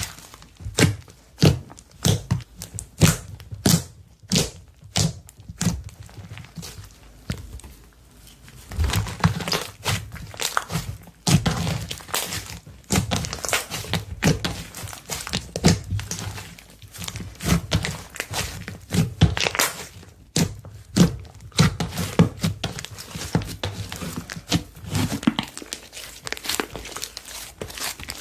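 Slime being squeezed and pressed by hand, with a steady stream of irregular sticky pops and clicks.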